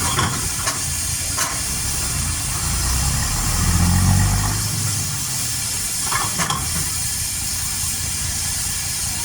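Steady hiss of steam from a steam engine, with a low engine rumble that swells and fades about three to four and a half seconds in, and a few sharp clicks.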